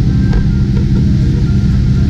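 Speedboat's engines running flat out, a loud steady low drone, with the rush of water and spray from the rooster-tail wake.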